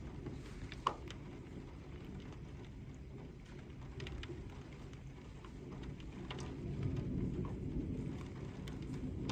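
Rain falling with scattered drops ticking close by, over a low rumble of thunder that swells louder in the last few seconds.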